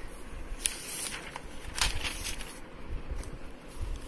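Scattered soft rustles and taps of paper as a hand moves over the pages of a printed book, over a low steady background rumble.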